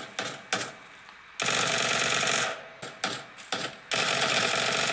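Video game gunfire. A few sharp single shots are followed by a burst of rapid automatic fire lasting about a second, then more single shots and a second burst of about a second near the end.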